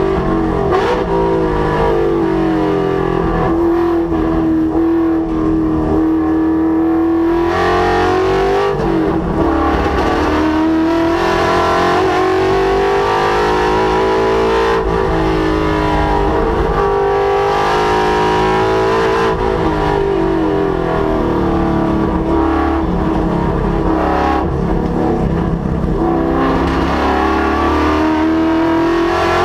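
Ford Mustang's Coyote 5.0 V8 driven hard on a race track, engine pitch repeatedly climbing and then dropping as it accelerates, shifts and slows for corners. Loud throughout.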